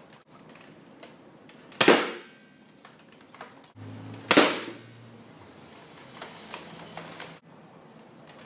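Two sharp, loud pops about two and a half seconds apart, each tailing off quickly: a Mortar Pistol pump-action air blaster with a SorrowX turret firing foam darts. Light clicks come between the shots.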